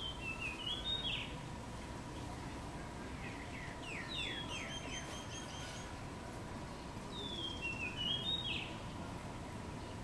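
Common myna calling: a whistled phrase that falls and then turns up, given twice, with a quick run of repeated short chattering notes between the two.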